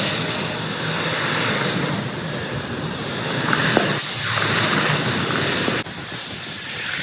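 Road traffic: vehicles running past on a highway, a rush of tyre and engine noise that swells and fades twice over a steady low hum. It dips suddenly about six seconds in.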